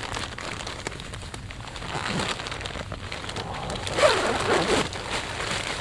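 Sleeping bag and bivy fabric rustling and crinkling as a person shifts and sits up in them. The rustle grows around two seconds in, and the loudest swish comes about four seconds in.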